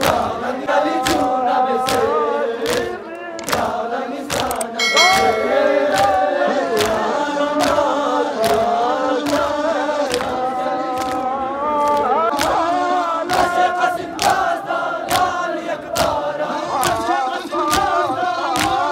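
Large crowd of men chanting a mourning lament (noha) in unison, with rhythmic chest-beating (matam) keeping time, about three strikes every two seconds.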